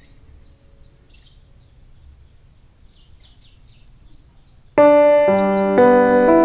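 Faint bird chirps over quiet outdoor background. About three-quarters of the way through, loud music starts suddenly, with sustained keyboard chords changing about every half second.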